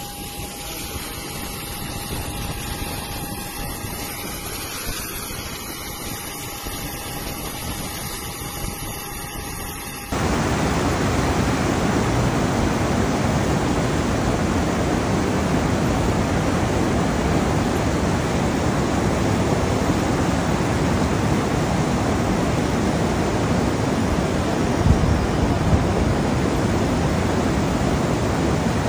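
For about ten seconds, a steady hiss with a faint held tone. Then an abrupt cut to the louder, steady rush of fast-flowing floodwater.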